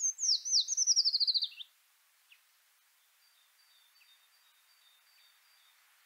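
A songbird singing one fast trill of high notes that steps down in pitch and ends about a second and a half in. It is followed by a single faint chirp and then faint, thin, high notes from a more distant bird.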